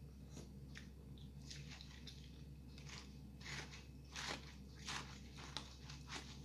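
Faint eating sounds: a plastic spoon scraping and clicking as it stirs melted halo-halo in a foam cup, with chewing. The sounds come as scattered short clicks and scrapes, a few of them louder from about three and a half seconds in.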